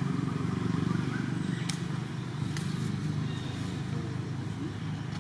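A steady low rumble, with two short faint clicks a little under a second apart near the middle.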